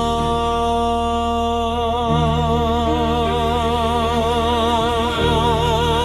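Song with a singer holding one long note over the backing band: plain at first, then with a wide vibrato from about two seconds in, while the bass line changes under it.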